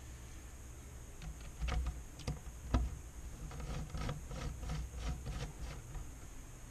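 Small clicks and taps of hands handling wires and the LCD panel's metal frame, with a few sharper knocks about two to three seconds in and lighter ticks after.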